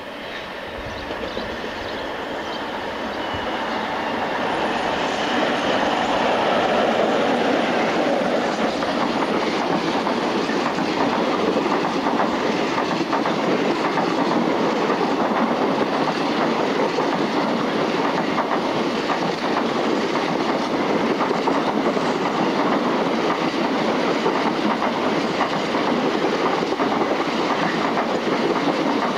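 A diesel-hauled freight train passes close by, growing louder over the first few seconds as the locomotive approaches. Then a long rake of empty bolster wagons clatters steadily over the rail joints.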